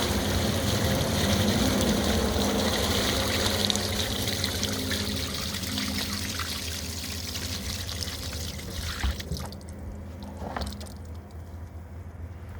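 Water pouring and trickling from a high-pressure rotary floor surface cleaner, over a steady low hum. The hiss fades and drops out about ten seconds in, leaving fainter trickling.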